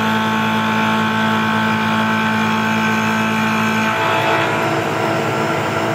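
Tormach PCNC 1100 CNC mill face milling 6061 aluminum dry: a steady whine of the spindle and the face mill cutting, made of several steady tones. About four seconds in, one low tone drops out and the cutting sound changes.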